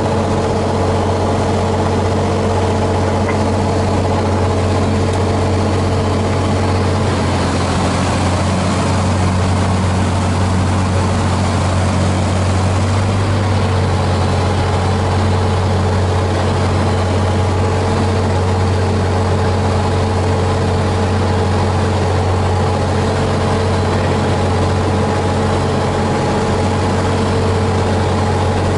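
Single-engine propeller airplane's engine and propeller heard from inside the cockpit, a steady drone with wind noise, on final approach and through the landing rollout.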